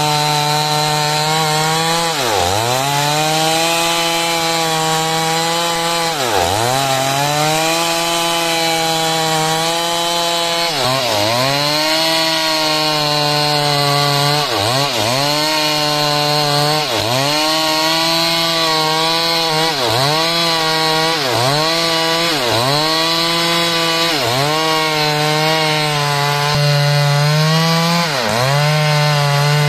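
Two-stroke Stihl chainsaw cutting wood at full throttle. Its pitch drops sharply and climbs straight back many times, every few seconds at first and about once a second later on.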